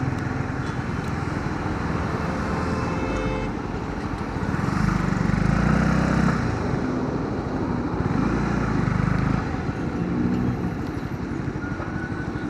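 Riding noise from a Honda CB125R's single-cylinder engine running on the road, mixed with wind and traffic noise. It swells for a couple of seconds about five seconds in.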